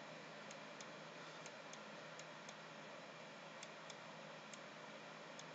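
Faint computer mouse clicks, about ten at irregular spacing and often in pairs, as letters are painted stroke by stroke, over a steady low hum and hiss.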